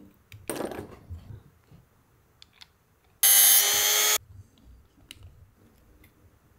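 Small rotary tool with a cut-off disc running for about a second, cutting a slot into a broken hex bolt head: a high whine with grinding hiss that stops abruptly. A short scrape comes about half a second in.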